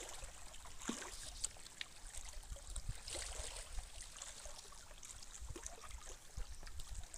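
Faint water lapping and trickling against a rocky shore, an even hiss dotted with small clicks over a low rumble.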